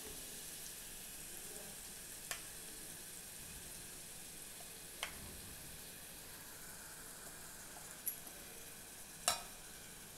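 Coriander-garlic paste sizzling in hot oil in an aluminium pot: a steady, faint frying hiss. A few light knocks break in, the loudest near the end as a steel spoon goes into the pot.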